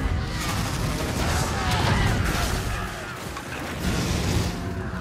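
Action-film soundtrack: a dragon's fire breath rushing, with booms and crashes of burning ships over music.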